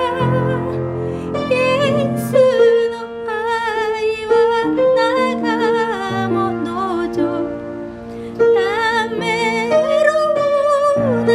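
Slow hymn music: a melody with a wide vibrato over soft harp-like plucked accompaniment.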